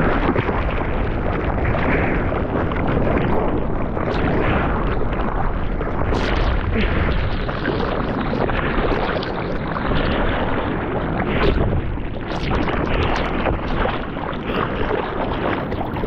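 Ocean whitewater rushing and splashing against a surfboard while the surfer paddles out, heard up close from a camera mounted on the board's nose, with sharper splashes now and then.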